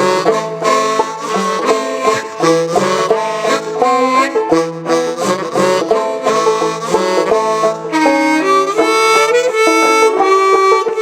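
Instrumental break of a bluegrass-style song: quick picked string notes carry the melody, and longer held notes join about eight seconds in.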